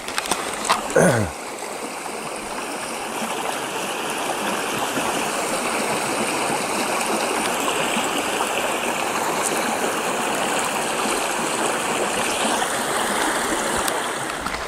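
Stream water running steadily, a rushing flow that grows louder over the first few seconds and eases slightly near the end.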